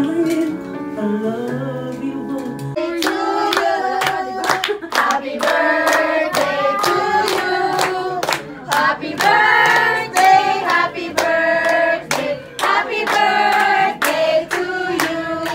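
Singing, with hands clapping along to the beat at about two claps a second, the clapping starting a few seconds in.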